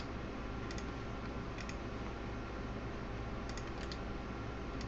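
A handful of faint computer mouse clicks, mostly in quick pairs, over a steady low hum.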